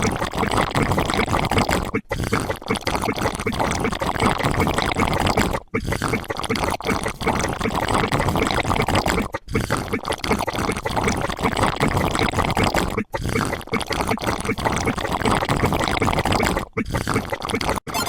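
A dense, noisy sound effect played on a loop, breaking off briefly and restarting about every three and a half seconds.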